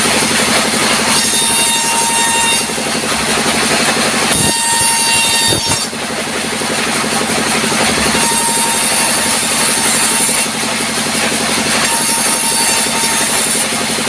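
Sawmill band saw running steadily, with boards fed through it one after another. Each cut adds a harsh, high-pitched whine over the machine's hum, four times, each lasting one to two seconds.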